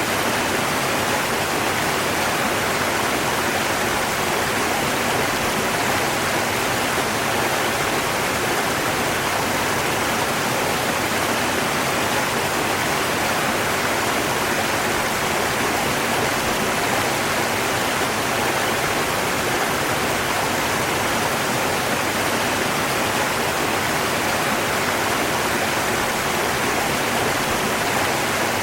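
River water rushing in a steady, unchanging hiss, with no separate splashes or other events.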